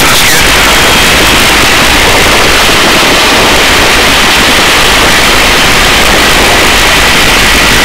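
Loud, steady helicopter noise heard at the open cabin door during a hover, a rushing roar with a faint high steady whine.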